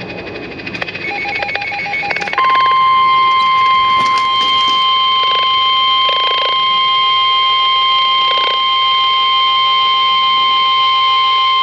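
NOAA Weather Radio alert sequence: the end of the SAME digital header bursts, rapid pulsing, then about two and a half seconds in the 1050 Hz warning alarm tone starts. It is a loud, steady single-pitch tone, the signal that a warning broadcast follows.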